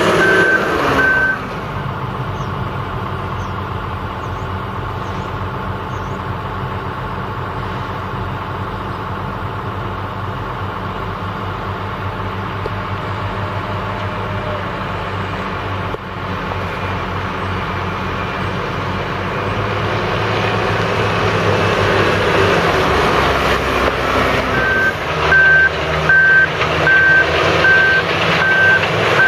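1998 John Deere 624H wheel loader's diesel engine running as the loader drives, louder in the second half as it comes closer. Its back-up alarm beeps at about two or three beeps a second at the very start and again near the end, the sign that the loader is in reverse.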